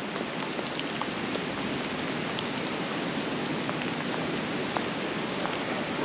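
Steady rain falling, with scattered individual drops ticking on nearby surfaces.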